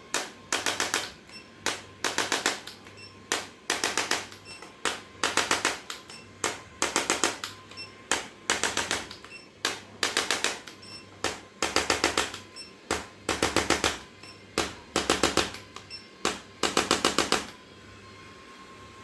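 Handheld percussion device tapping in short bursts of rapid strikes, about one burst every second and a half with lighter clicks between, stopping near the end.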